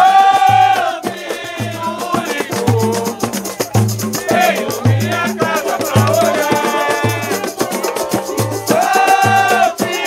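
Live samba music from a roda: voices singing over a cavaquinho, with a deep surdo stroke about every 0.8 s and pandeiro and hand drums keeping a fast rattling beat.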